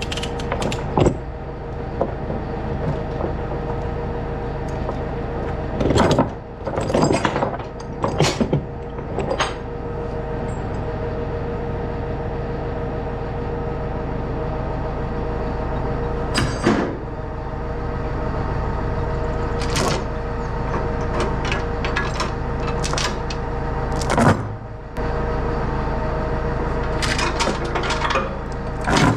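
John Deere tractor engine running steadily, with a low rumble and a held tone, while sharp metal clanks and knocks come and go, several of them together about six to nine seconds in.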